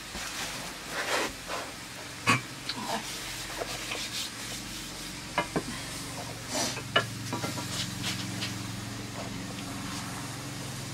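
Metal ladle stirring and scraping in a metal karahi over a wood fire, with several sharp clicks of metal on metal, mixed with the rustle of a plastic sack being handled. A low steady hum comes in a little after halfway.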